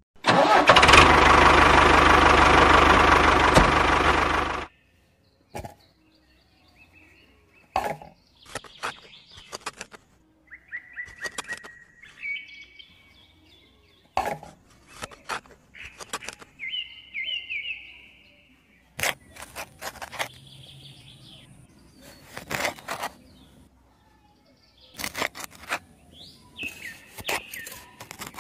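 A toy tractor's small motor runs loudly for about four and a half seconds, then cuts off abruptly. After it come birds chirping on and off, with scattered light clicks and taps as pebbles and a tiny shovel are handled in sand.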